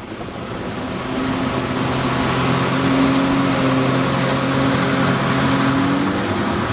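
Engine of the towing watercraft running steadily at speed, a steady hum that swells about a second in, over the rush of its wake and wind on the microphone.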